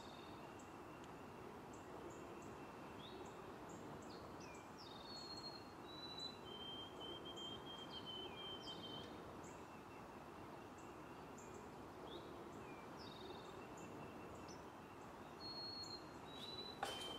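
Faint birds chirping, with short whistled notes that rise or fall and a few held trills, repeating over steady background noise.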